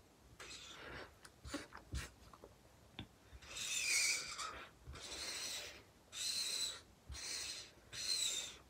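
Felt-tip alcohol marker rubbing on paper in about five scratchy strokes of roughly a second each, with a thin high squeal in several of them, a sign that the marker is starting to dry out.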